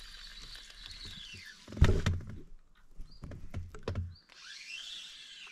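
Spinning feeder reel being wound, its gear whine sliding down in pitch as the winding slows about a second and a half in. Several dull knocks from handling the rod and gear follow, then the reel whine rises and falls again near the end.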